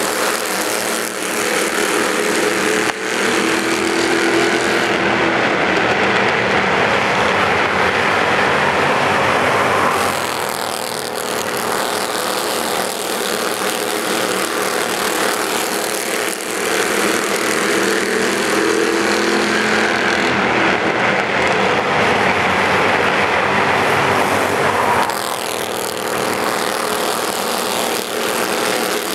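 A field of Bandolero race cars running laps. The drone of their small engines swells and fades as groups of cars go past.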